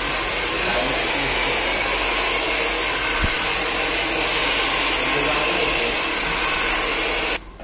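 Handheld hair dryer running steadily, blowing air over long hair during a blow-dry with a round brush. The sound cuts off abruptly near the end.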